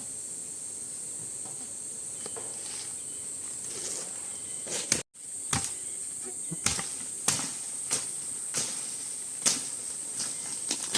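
Steady high-pitched chorus of crickets or similar insects. From about five seconds in, a series of sharp knocks or strikes comes at about one to two a second.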